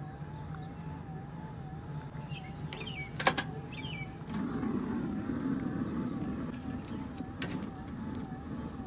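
Pit Boss pellet smoker with a steady low hum; a sharp clack about three seconds in, then a louder low rush as its lid is lifted open. A few light metal clicks of tongs near the end.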